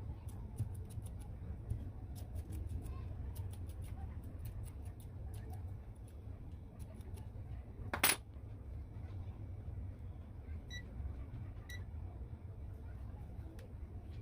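Scattered light clicks and ticks, with one sharp, louder click about eight seconds in and two faint metallic pings a little later, over a low steady hum.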